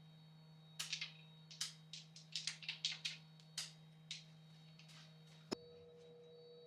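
A run of light, irregular metallic clicks from hand tools setting up a puller on the harmonic balancer of a Chevy 454 big-block engine, over a faint steady hum; a single click about five and a half seconds in.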